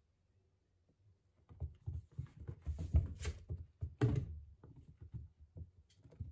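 A kitten's paws thumping and scuffling on wood-look flooring as it pounces and leaps after a wand toy. A few sharper thuds come about halfway through.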